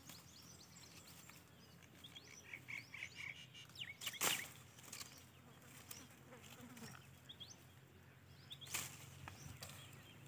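Faint outdoor birdsong: many short, rising chirps scattered throughout, over a faint low hum. Two brief sharp noises stand out, about four and nine seconds in.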